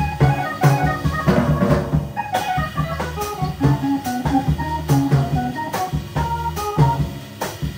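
Live band playing upbeat instrumental mod jazz, with guitar and a drum kit keeping a steady beat.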